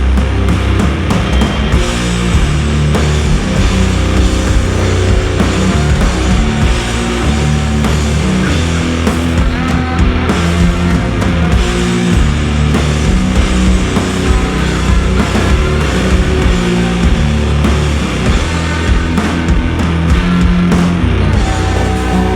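Background heavy rock music with distorted guitar and a steady driving beat.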